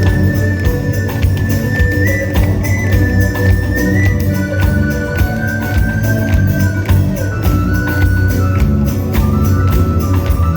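Live rock band playing an instrumental passage of the song: steady bass and drums with a shaken tambourine under a high melody line of long held notes that step up and down.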